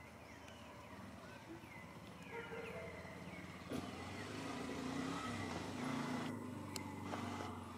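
A motor vehicle passing on a nearby road, its engine hum swelling about four seconds in and easing off near the end.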